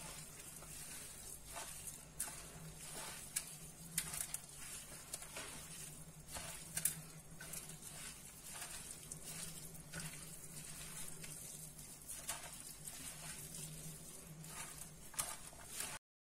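A gloved hand mixing raw stuffing of minced meat, rice, chopped parsley, tomato and onion in a bowl: irregular soft wet clicks and crackles over a steady low hum. The sound cuts off just before the end.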